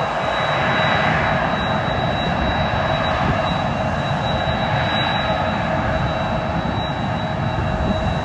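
Jet airliner's engines running loud and steady, a dense rush of noise with a high, steady whine over it.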